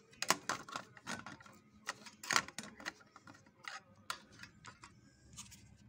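Irregular light clicks and ticks from the exposed mechanism of an Olimpia multipunto sewing machine as it is turned slowly by hand, during a check of the feed-dog timing at the eccentric.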